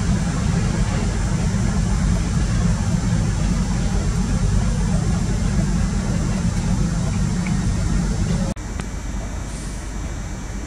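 Underfloor diesel engines of a CrossCountry Voyager diesel multiple unit running as it moves through the station throat, a steady deep rumble. About eight and a half seconds in it cuts off suddenly to a quieter, even station background.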